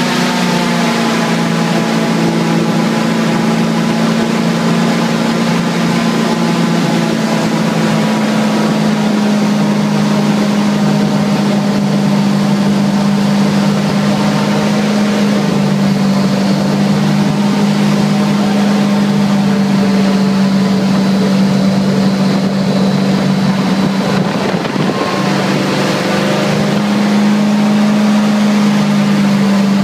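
Airboat's engine and air propeller running steadily under way, a loud continuous drone with a strong low hum. The pitch sags slightly through the middle and rises again near the end as the throttle changes.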